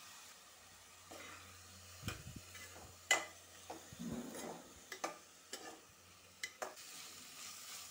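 Spatula stirring raw basmati rice into coriander paste in an aluminium pressure cooker: soft scraping with irregular sharp clicks of the spatula against the pot, over a faint sizzle from the oil.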